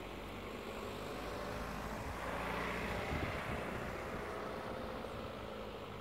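A passing vehicle's engine and road noise, swelling to a peak about halfway through and then fading away over a steady low background hum.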